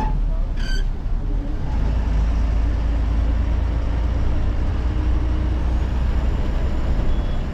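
Cab of a moving Haryana Roadways bus: steady low engine rumble and road noise, with a short high-pitched beep about a second in.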